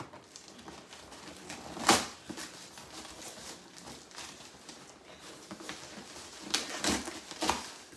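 Cardboard shipping box and its packing being pulled open and handled, with a sharp knock about two seconds in and a few more knocks and rustles near the end.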